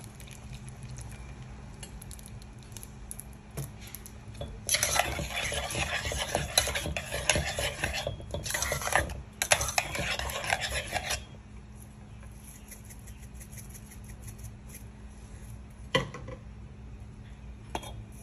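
Metal spoon scraping and clinking against the sides and bottom of a steel saucepan while stirring and mashing potatoes with milk, loudest in a run of about six seconds with two brief pauses. Two single sharp knocks follow near the end.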